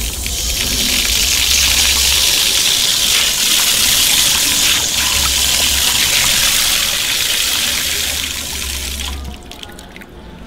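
Water running from an outdoor tap and splashing into a terrazzo concrete basin, a steady hiss that cuts off about nine seconds in as the tap is turned shut.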